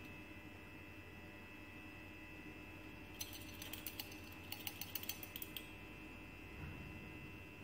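A quick run of light glassy clicks and clinks lasting about two seconds, from a glass pipette and test tube being handled while sample is pipetted into a dilution tube, over a faint steady hum.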